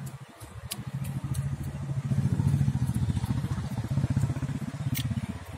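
A small engine running steadily, getting louder towards the middle and fading again near the end, with a few faint clicks.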